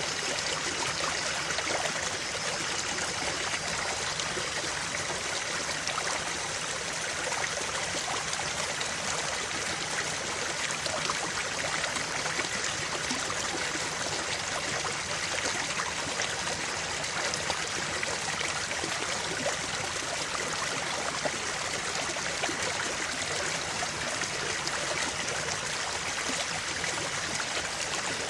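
Creek water flowing over stones, a steady babbling and trickling that never lets up.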